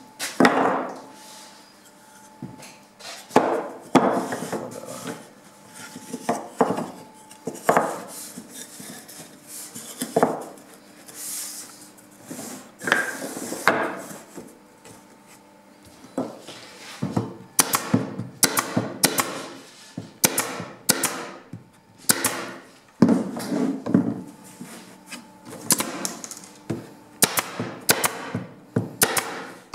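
Pine strips knocked and set down on a wooden tabletop. From about halfway, an air-powered pneumatic stapler fires staples into the pine in quick succession, a sharp shot every half second to second.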